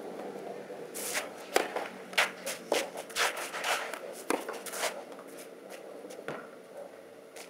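Tennis rally on a clay court: rackets striking the ball and the ball bouncing, heard as a run of sharp knocks, with shoes scuffing on the clay between them. The knocks come thick from about a second in to about five seconds in, with one last one a little after six seconds.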